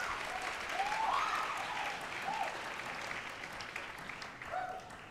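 Audience applauding, with a few short cheers rising over the clapping. The applause peaks about a second in and dies away near the end.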